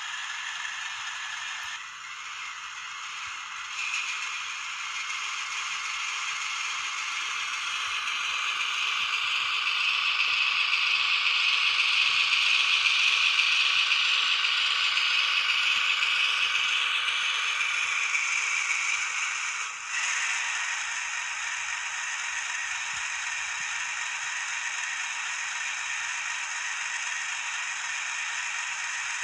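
Kato HO-scale DD51 model locomotive playing its factory diesel-locomotive sound through a small speaker, a steady rattling mechanical noise with no bass. It shifts abruptly about two seconds in and again about twenty seconds in, and swells louder in the middle.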